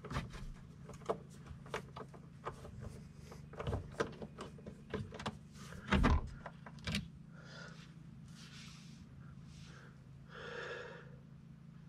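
Hand work on a truck's fog light mount: a string of small irregular clicks and taps as Torx screws are worked out of the plastic housing, with a louder knock about six seconds in. Then a few soft rustles while a removed screw is handled, over a low steady hum.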